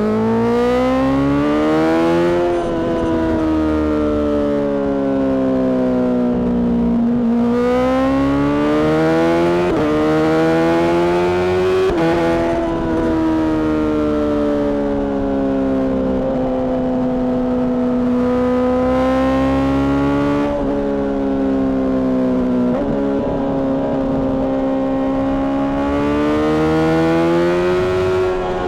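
Honda CBR600RR inline-four sport bike engine through a Mivv exhaust, its pitch rising and falling several times as the bike accelerates and slows.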